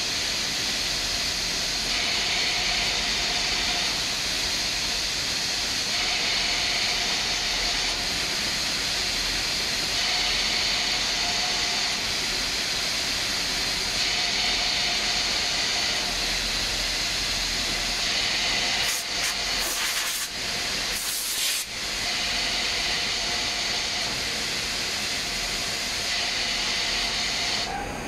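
Steady, loud hiss of compressed air from Gema powder-coating equipment running its automatic colour-change cleaning, over a steady machine hum. The hiss breaks in a few short gaps about two-thirds of the way through.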